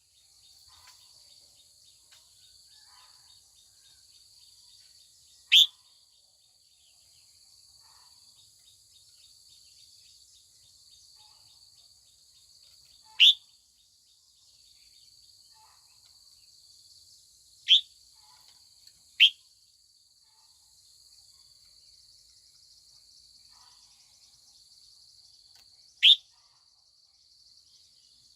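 Red-whiskered bulbul giving five short, sharp calls, each a quick downward sweep in pitch, several seconds apart, two of them close together past the middle. A steady high insect drone runs underneath.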